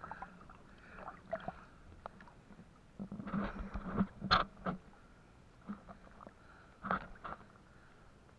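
Shallow river water sloshing and splashing irregularly as a person wades through it, the water lapping close to the microphone. A run of louder splashes comes about three to five seconds in, and one more about seven seconds in.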